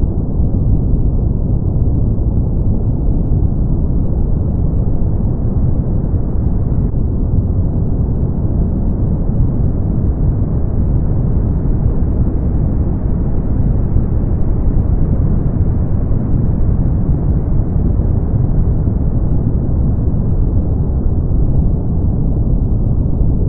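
Brown noise: a steady, deep rushing hiss, heavy in the bass and muffled, with no treble, holding at an even level throughout.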